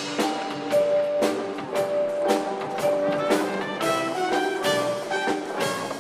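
Live show-choir band playing an upbeat instrumental passage, a drum beat striking about twice a second under sustained melodic notes.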